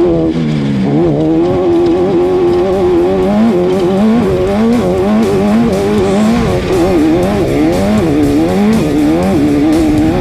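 Off-road race car engine revving up and down in quick, constant swings, with music playing underneath.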